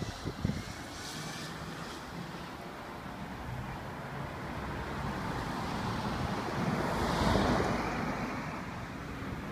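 Road traffic noise, with a car passing close by: the sound swells to its loudest about seven seconds in and then fades. Wind buffets the microphone with low thumps near the start.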